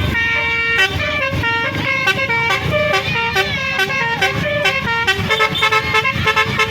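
Basuri telolet air horn of the QQ Trans 'Winspector' bus playing a fast tune of short horn notes stepping up and down in pitch, over a low rumble.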